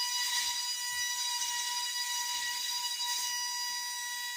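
Electronic horn on a K'nex roller coaster sounding one steady high-pitched tone without a break, over a light hiss and a few faint clicks.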